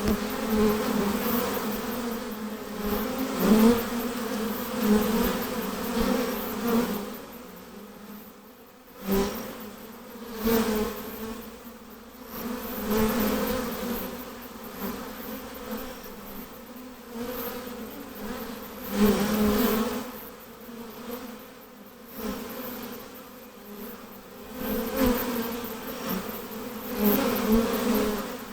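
Honey bees buzzing near their hive: a steady hum with a low pitch and its overtone, swelling louder and fading again many times as individual bees fly close past the microphone.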